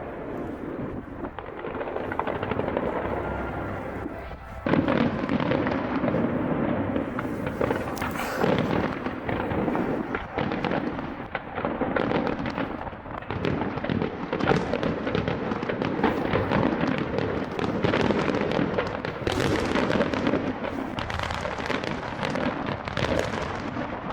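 Aerial fireworks display: a dense, unbroken barrage of bangs and crackling, which grows louder about five seconds in.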